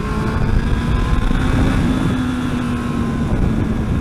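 Yamaha R1 superbike's inline-four engine pulling under acceleration. Its note drops at a gear change right at the start, then rises and holds, over heavy wind rush.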